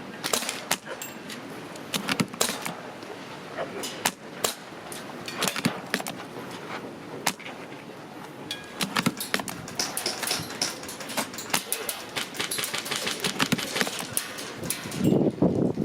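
Airsoft guns firing at an outdoor range: a run of sharp, irregular cracks and clicks. A gust of wind rushes over the microphone near the end.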